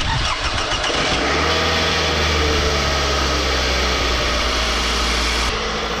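2005 Scion tC's 2.4-litre four-cylinder engine cranking, catching about a second in and settling into a steady idle. It starts only after the starter motor was struck with a hammer, the sign of a worn, sticking starter that needs replacing.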